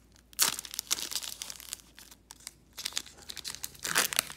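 A Pokémon TCG booster pack's foil wrapper crinkling and tearing as it is ripped open by hand. The sound comes in irregular crackly bursts, loudest about half a second in and near the end.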